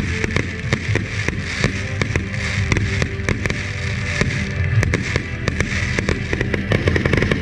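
Dense barrage of fireworks going off, many sharp bangs and crackles in quick succession, over music with a steady tonal backing.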